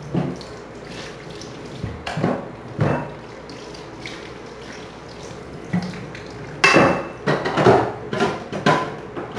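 Dishes being washed at a kitchen sink: water running steadily with occasional clinks of crockery, then a run of loud clattering in the last few seconds as dishes are stacked into a plastic dish rack.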